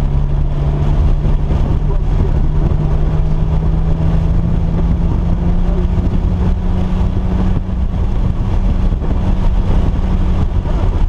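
Vehicle engine running hard at speed over a heavy low rumble of noise. Its pitch climbs slowly for several seconds and drops off abruptly about two-thirds of the way through.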